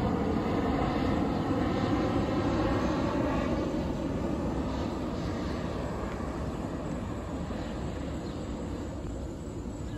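Boeing 737-700 airliner's CFM56-7B turbofan engines passing low on approach with gear down: a steady jet rumble that fades gradually as it moves away.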